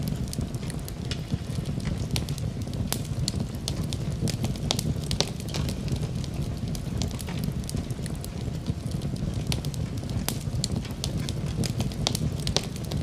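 Fireplace wood fire crackling: irregular sharp pops and snaps over a steady low rumble of flames.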